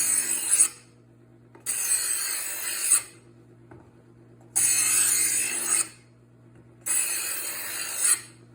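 Kitchen knife drawn through the first-stage slot of a Chef's Choice Hybrid sharpener, giving a harsh scraping rasp about a second long on each pass. There are three full passes and the end of a fourth, each ending in a sharp peak as the blade leaves the slot. Under the passes the sharpener's motor hums steadily.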